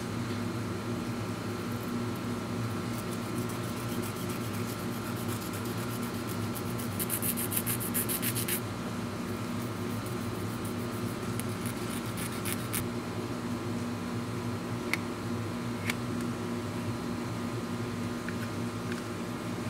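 An air conditioner whirring steadily with a constant hum. About seven seconds in, a quick run of rapid scratchy strokes lasts about a second and a half: a thin resin part being rubbed on a sanding pad. Two light clicks come near the end.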